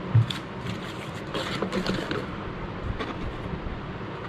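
Cardboard boxes and packaging handled on a tabletop: scattered knocks and rustling as items are moved and set aside, with a sharp thump just after the start.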